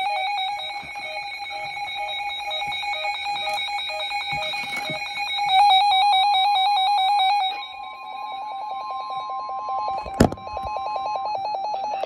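Weather radio alert alarm: a fast, evenly pulsing electronic beep. A second steady tone joins about halfway and stops shortly before the end, and there is one sharp click about ten seconds in.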